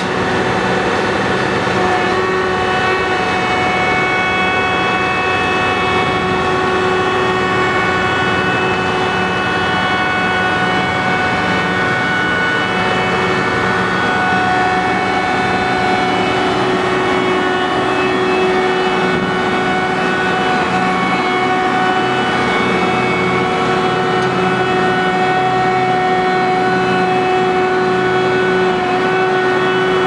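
Asphalt paver working with a bottom-unloading asphalt trailer feeding its hopper: heavy diesel machinery running steadily, a constant drone with several steady whining tones held throughout.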